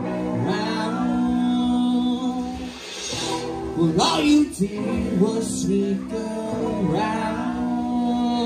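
Live rock band playing, with electric guitar, bass and drums and some pitch-bending lead lines.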